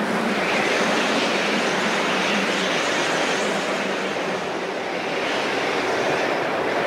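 Ocean surf: a steady rushing wash of waves that swells and eases a few times.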